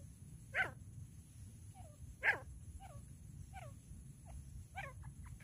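Female grey francolin calling: two loud, harsh single calls a little under two seconds apart, with softer short falling notes between them and a quick run of them near the end.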